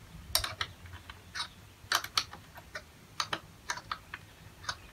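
Wrench clicking against a steel turnbuckle as it is turned to tension a gate anti-sag cable: a dozen or so sharp, irregular clicks.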